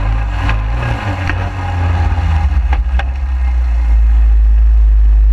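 Suzuki 250 QuadSport quad riding over grass, heard from low on its front end: a steady deep rumble of engine and wind buffeting, with a few sharp knocks from the chassis.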